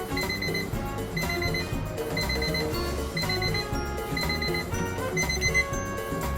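Background music with a steady beat, a bass line and short rapid beeping synth notes repeating about once a second.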